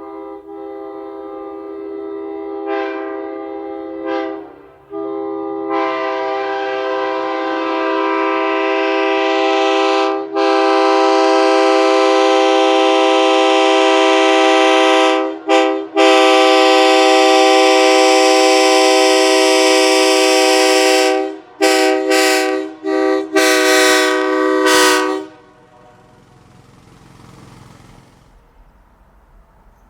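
Nathan K3HA three-chime train horn mounted on a truck, sounding its chord. A few short toots come first, then a long blast broken by brief gaps, ending in a run of quick short blasts about twenty-two to twenty-five seconds in.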